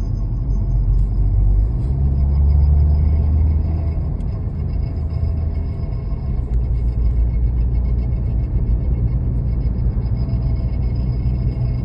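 A 2024 Mercedes-AMG C43 on the move, a steady low rumble that swells from about two to four seconds in, with faint high tones over it: the car's intermittent scraping noise, whose source the owner could not find.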